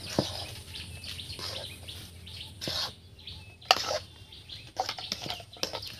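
Metal spatula scraping and knocking against a metal karahi as thick potato filling is stirred and fried, with a few sharp scrapes standing out. Birds chirp in the background.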